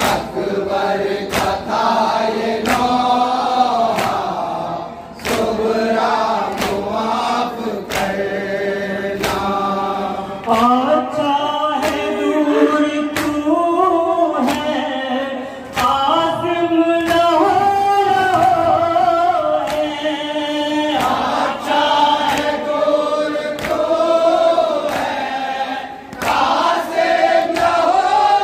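A noha, an Urdu lament, chanted by male voices with a group of mourners singing along, over a steady beat of open-hand chest-beating (matam) slaps that keeps time with the chant.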